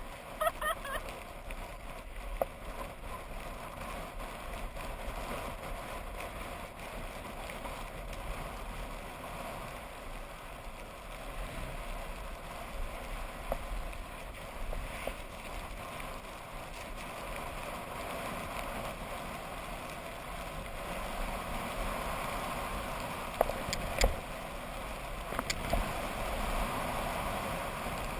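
Skis sliding and scraping on packed snow, with wind rushing over a GoPro camera on a skier in motion. The noise is steady, swells a little in the second half, and two sharp knocks come near the end.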